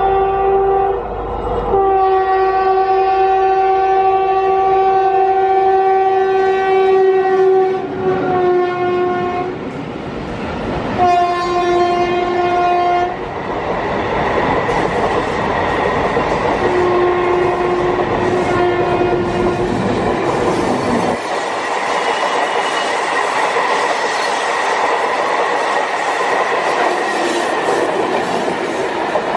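WAP-7 electric locomotive's air horn sounding several blasts, one long blast of about six seconds followed by shorter ones. From about halfway through, the hauled AC EMU coaches roll past close by, their wheels rumbling and clattering over the rail joints.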